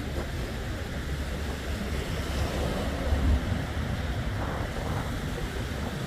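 Low sea waves washing against the shore, with wind buffeting the microphone in a low rumble that swells briefly about halfway through.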